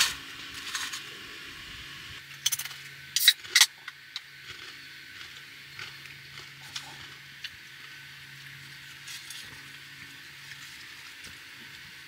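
Small clicks and crackles of handling tortilla chips, a plastic dip cup and a stainless steel bowl, with a few sharper, louder clicks about three seconds in. A faint steady low hum runs underneath.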